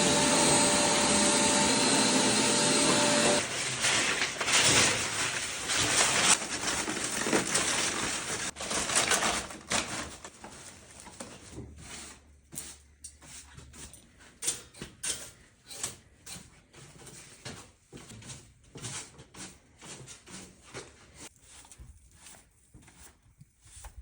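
A motor-driven machine runs steadily with a whine and cuts off about three seconds in. Irregular scraping and knocking follow, then scattered knocks and clatter as tools and objects are handled and moved.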